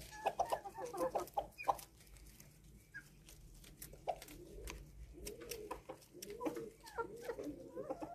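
Rabbits chewing spinach leaves, giving many sharp, crisp clicks, while short, low bird calls that rise and fall come and go in groups.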